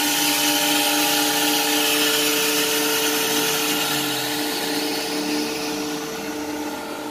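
Freshly rebuilt Rexroth A10VO71 axial piston hydraulic pump running on an electric-motor test bench under load: a steady whine with a hiss of oil through the loading valve, easing slightly near the end as the test pressure is let down from 160 bar.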